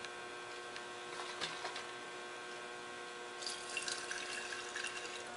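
Old gasoline draining from a lawnmower's plastic fuel tank into a glass jar: a faint trickle of liquid, a little louder near the end.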